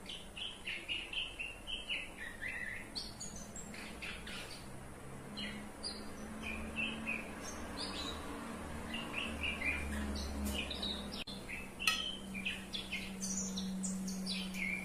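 Small birds chirping in many short, repeated calls over a low steady hum that grows stronger in the second half, with one brief click about twelve seconds in.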